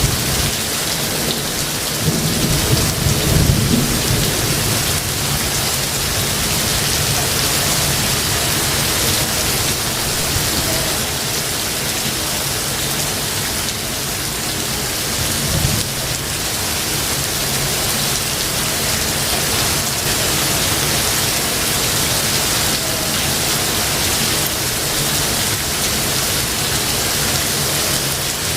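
Thunderstorm: steady rain falling, with low thunder rumbling a couple of seconds in and again about halfway through.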